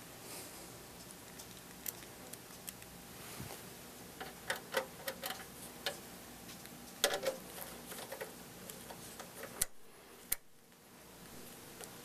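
Ratcheting screwdriver driving the power supply's mounting screws into a metal computer case: scattered small clicks and ticks, bunched about four and seven seconds in, with two sharper clicks near the end.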